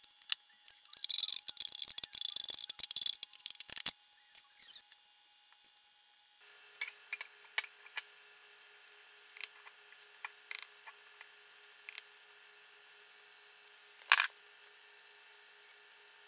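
Spoon scraping yogurt out of a plastic container, a dense run of scrapes and clicks lasting about four seconds. Then scattered light clicks and taps of a measuring spoon and bowls as lime zest is measured, with one sharper knock near the end.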